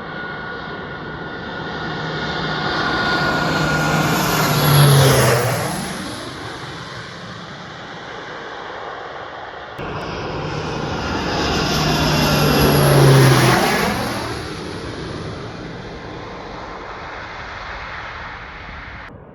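Firefighting airplane flying low past, growing loud and then fading as its engine pitch drops. A second pass follows after a sudden cut.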